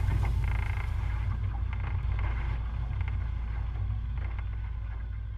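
A boat under way, with a steady low rumble and wind buffeting the microphone.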